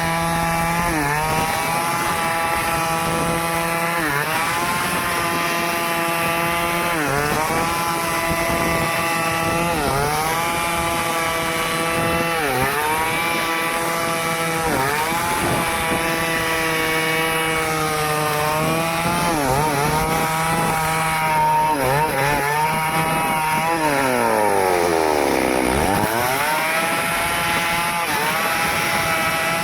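Stihl chainsaw running at high revs while cutting wood. The engine pitch sags and recovers every few seconds as the chain bites under load. Near the end the revs drop steeply and then climb back up.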